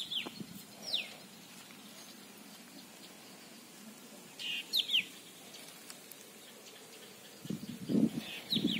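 Birds calling over a flooded field: short, high calls that fall in pitch, heard singly or in twos and threes a few times, over a faint steady outdoor background.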